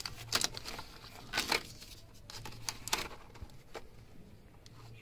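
Hands working a car wiring connector among the horn wires: a few small clicks and rustles of plastic and cable, grouped near the start, about a second and a half in and around three seconds, then fainter.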